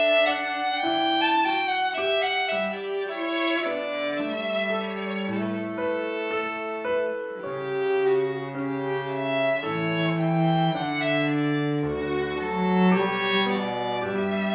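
Background music of bowed strings: violin and cello playing slow, held notes in several parts at once.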